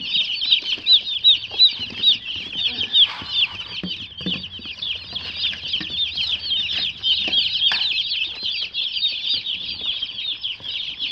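A box of day-old meat chicks peeping nonstop, a dense chorus of short, high cheeps overlapping many times a second, with a few soft knocks of handling underneath.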